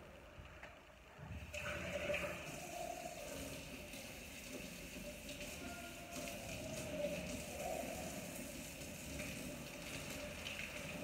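Kitchen tap running water into a sink, starting about a second and a half in and running steadily.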